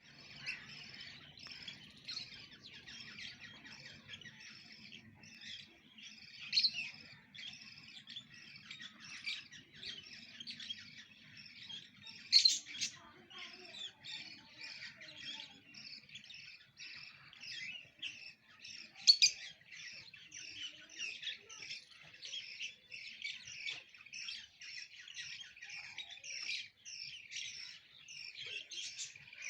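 Small parrots chirping and chattering in a rapid, unbroken stream of short high notes, with a few louder, sharper calls standing out about a third of the way in, near the middle and about two-thirds of the way through.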